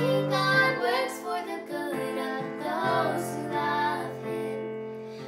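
Two girls singing a song together in unison, accompanying themselves on an electric keyboard with sustained chords; the singing gets quieter near the end.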